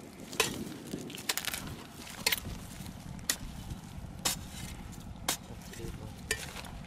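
Small spade striking into hard, dry, cracked mud, a sharp crunch of breaking soil about once a second.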